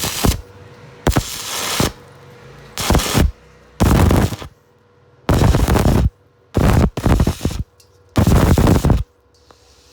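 Electric arc welder crackling in about seven short bursts, each under a second, with brief pauses between them: a small steel patch being tack-welded over a hole in a steel water tank.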